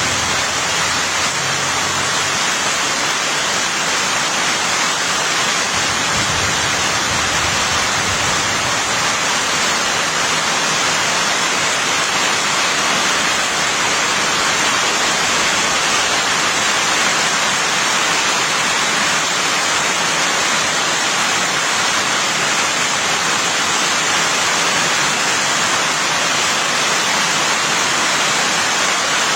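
Rain falling steadily, a dense even hiss that does not let up.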